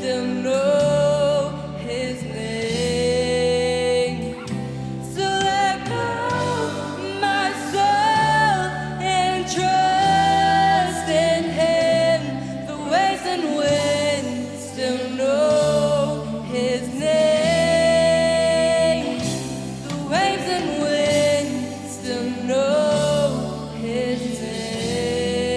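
Worship music: a sung melody over instrumental accompaniment, with a bass line that changes note about every second or two.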